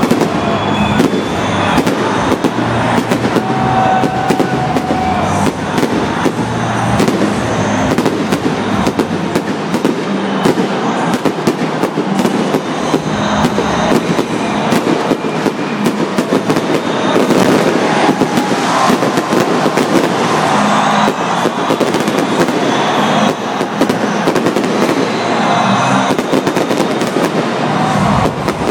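Large aerial fireworks display: a dense, almost unbroken run of crackling and sharp bangs as shells burst overhead.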